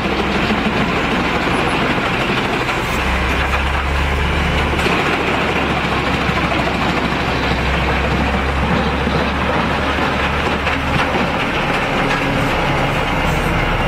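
Heavy machinery running steadily: a low engine drone under dense, even mechanical noise.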